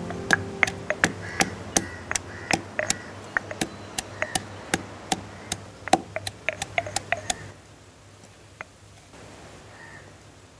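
Stone pestle pounding in a stone mortar: sharp knocks at about three a second, stopping about seven seconds in, followed by a few faint clicks.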